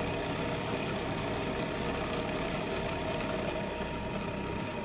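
Drill press motor running steadily at low speed while its twist bit bores slowly into a 5 mm metal plate under light, steady feed.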